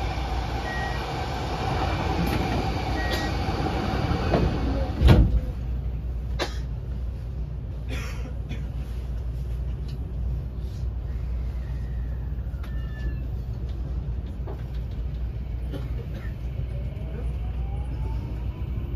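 Interior of a JR West 223 series 2000 motor car standing at a station, with a steady low rumble. A single loud thump comes about five seconds in as the doors close. Near the end the Toshiba IGBT VVVF inverter starts a rising whine as the train begins to pull away.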